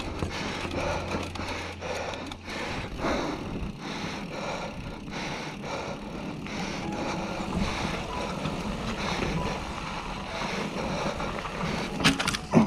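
Norco Range A1 mountain bike rolling over a rocky dirt trail: tyre noise and rattling from the bike, with the rider's heavy breathing rising and falling about once a second, laboured from a sarcoidosis flare-up. A quick run of sharp clatters comes near the end.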